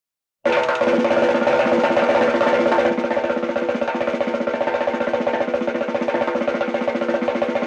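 Cartoon sound effect: a fast percussion roll over a held musical chord. It starts suddenly about half a second in and runs on steadily until it cuts off near the end.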